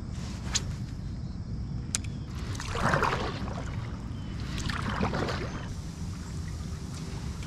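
A paddle being stroked through calm lake water beside a stand-up paddle board: two swishing, splashing strokes about two seconds apart, over a low steady rumble.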